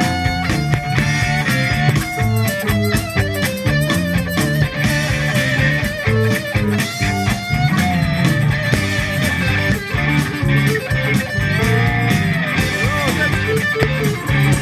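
Live blues-rock band playing: electric guitar and bass over a repeating low riff, with a lead line of bending notes on top.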